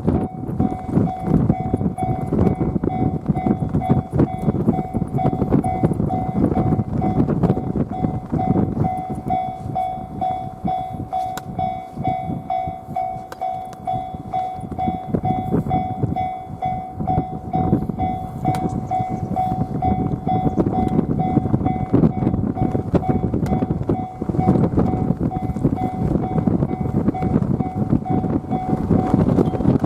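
Railway level-crossing warning bell ringing on one steady two-note pitch, stopping near the end, over heavy wind buffeting the microphone and the rumble of a passing train.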